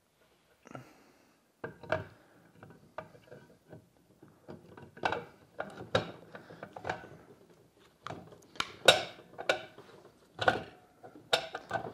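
Irregular metal clunks, clicks and scraping as a pump motor is set down on its cast-iron volute and shifted to line its bracket up with the studs. The sharpest knocks come in the second half.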